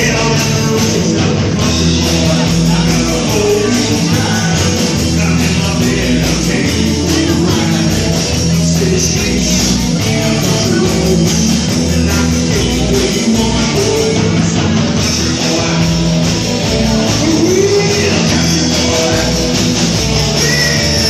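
Loud rock music from a full band, with singing in places.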